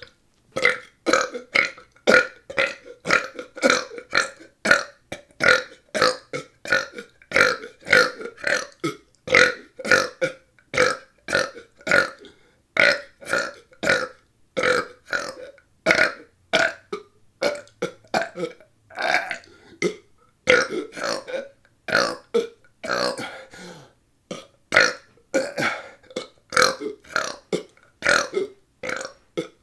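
A person belching over and over in short, rapid burps, about two a second, with a couple of brief pauses.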